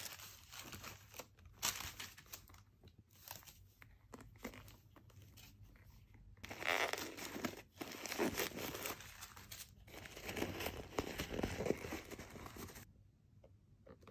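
Packaging being unwrapped by hand: irregular crinkling, rustling and tearing of wrapping, louder about seven seconds in and again around ten to twelve seconds in, then dying down near the end.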